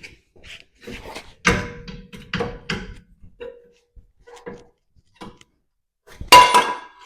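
Metal parts of the Jeep's front suspension and tools being handled: a series of knocks and clanks, several with a short metallic ring, the loudest about six seconds in.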